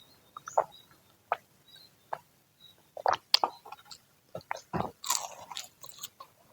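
Crunching and chewing of freshly fried gorengan (Indonesian fritters), a run of irregular crisp crunches with a denser crunch about five seconds in.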